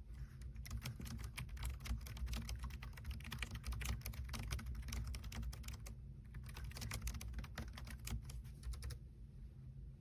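Fast typing on a Logitech K380 keyboard's round, low-profile keys: a quick, steady patter of key taps with a brief pause about six seconds in, stopping about nine seconds in.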